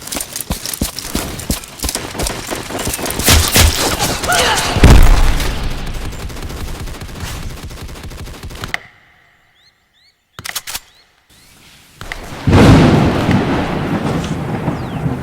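Gunfire sound effects: rapid volleys of shots with a heavy boom about five seconds in, fading out to near silence, broken by a couple of sharp cracks. Near the end a loud crash of thunder breaks and rolls on, with rain setting in.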